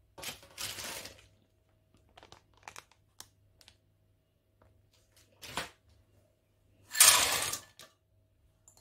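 Plastic bag of frozen peas crinkling, then a few light clicks, then frozen peas tipped from a bowl rattle into a stainless steel pot, the loudest sound, lasting under a second near the end.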